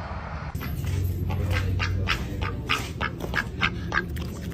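White domestic duck giving a quick series of short quacks, about three a second, starting about half a second in.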